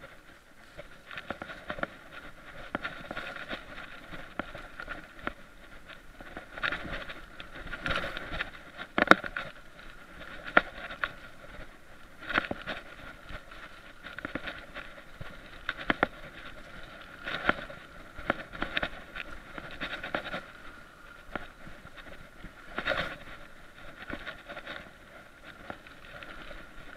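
Mountain bike riding over a dirt and leaf-covered trail: a constant rolling rush of tyres on the ground, broken by frequent irregular knocks and rattles as the bike goes over bumps.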